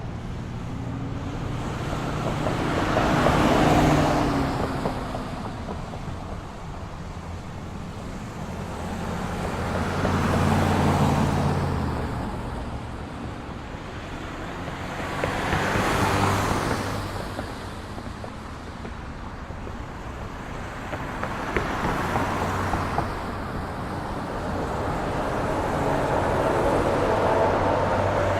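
Street traffic: a steady hum of engines and tyres, with about four or five vehicles passing one after another, each swelling up and fading away.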